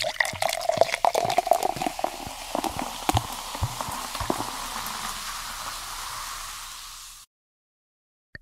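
A drink being poured into a glass: liquid splashing with many sharp clicks over the first few seconds. It settles into a steadier pour that eases off and cuts off abruptly about seven seconds in.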